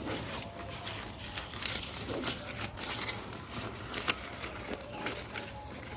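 A cow eating grass fodder: irregular crunching and rustling as the grass is torn and chewed.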